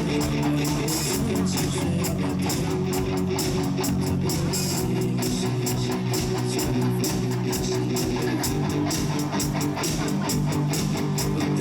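Rock band playing an instrumental passage without vocals: strummed electric guitars over bass guitar, with a steady beat of drums and cymbals.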